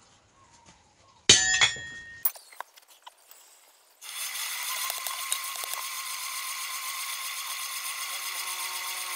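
A single hammer blow on hot iron at the anvil, ringing, followed by a few light metal clinks. From about four seconds in a steady mechanical whirr and hiss starts suddenly and runs on.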